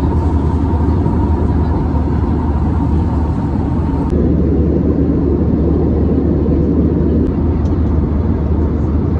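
Steady cabin noise of an Airbus A320 airliner heard inside the cabin: a loud, even, deep rumble of the engines and rushing air.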